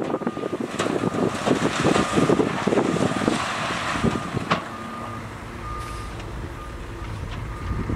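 Reversing alarm on heavy construction machinery beeping repeatedly over a diesel engine, with loud rattling and crunching in the first half and a sharp knock about four and a half seconds in.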